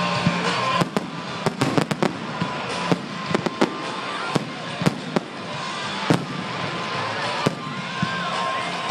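Fireworks going off in quick, irregular sharp cracks and bangs over a continuous crackling hiss. The cracks are thickest in the first five seconds, then thin out to occasional bangs.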